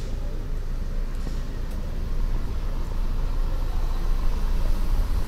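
City street traffic: a motor vehicle's low engine rumble, growing louder from about two seconds in, over the general noise of the street.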